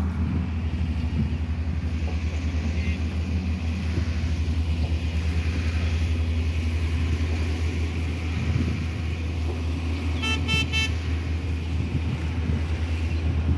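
Steady low rumble throughout, with a vehicle horn tooting three short times about ten seconds in.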